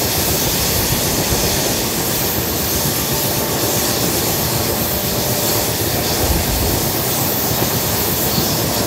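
Golden Temple Mail express train running along the line, climbing a gradient: steady noise of the coach wheels on the track.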